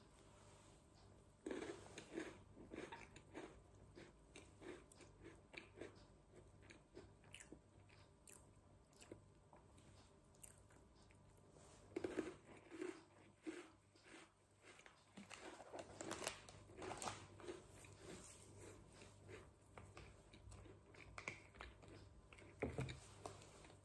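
A person chewing a crunchy Ringo salted-caramel sandwich biscuit, close to the microphone: faint steady chewing with bursts of crisp crunching now and then.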